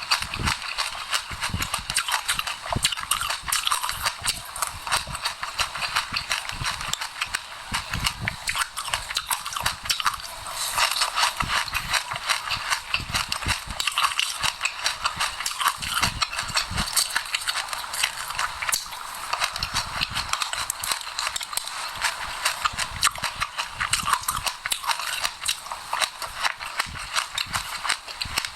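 Close-miked chewing of sesame seeds with passion fruit: a dense, continuous crunching of many tiny seeds, with soft low mouth thumps here and there.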